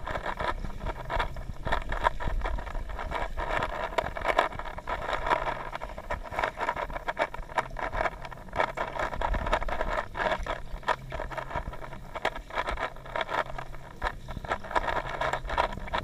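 Underwater swimming-pool ambience picked up through a submerged camera: a steady muffled hiss and low hum, with many small clicks and ticks throughout.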